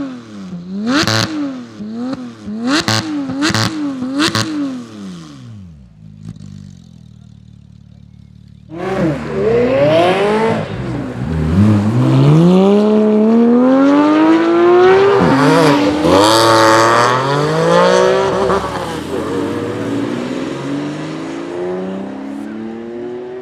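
Porsche 991 GT3 flat-six with an iPE titanium exhaust blipped several times, each rev rising and falling quickly with sharp cracks, then settling to a quiet idle. About nine seconds in it pulls away hard, the pitch climbing and dropping through several gear changes, and it slowly eases toward the end.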